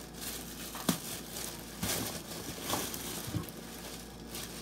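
Thin plastic bag crinkling and rustling in irregular bursts as a purse is worked out of it, with a sharp tap about a second in.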